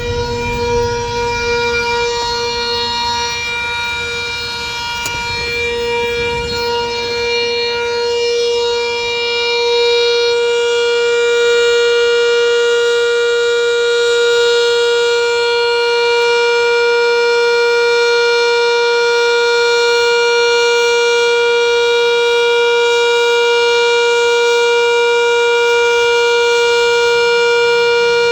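Sentry 10V outdoor warning siren sounding its steady Alert tone, one unwavering pitch, growing louder over the first ten seconds and then holding. A low vehicle rumble underlies it for the first few seconds.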